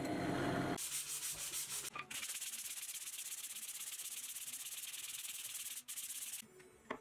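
A drill press boring into plywood, cutting off about a second in. Then a sanding block is rubbed by hand over plywood pieces in quick, even back-and-forth strokes, stopping shortly before the end.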